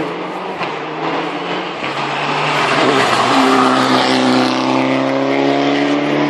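Rally car passing at speed, its engine note getting louder to a peak three to four seconds in and then dropping slightly in pitch as it goes by.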